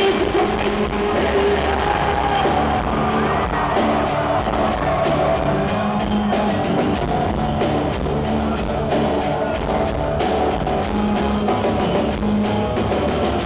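A rock band playing an acoustic set live, with steadily strummed acoustic guitars over a low bass line.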